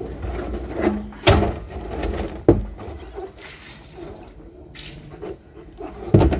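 Plastic drum being turned and rolled by hand, rinse water sloshing and running out of its bung holes, with three sharp knocks as the drum is handled.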